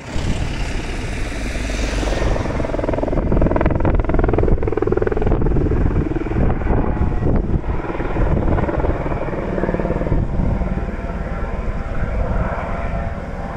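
Distant Airbus H130 helicopter flying with a firefighting bucket slung beneath, its rotor and turbine heard as a steady drone. Wind rumbles on the microphone underneath.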